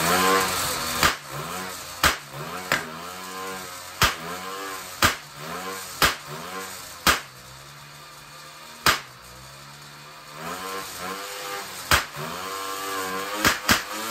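66cc two-stroke bicycle engine running on hydrogen, revved up and down about once a second with a quieter steady idle in the middle, and about a dozen sharp loud backfire pops, mostly as the revs fall. A lot of backfiring out the carburetor, which the uploader puts down to ignition timing that needs retarding and the builder to a poor piston ring seal with hydrogen in the crankcase.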